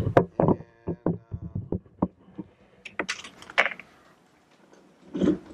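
Rapid clicks and knocks of a handheld camera and its mount being handled and repositioned, with a brief metallic ring about half a second in and a short rustle about three seconds in.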